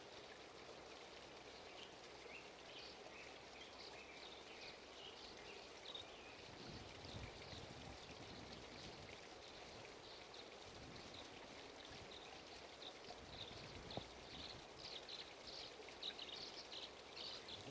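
Faint outdoor ambience: small birds chirping and twittering in short repeated calls over a soft steady hiss, the calls busiest in the last few seconds.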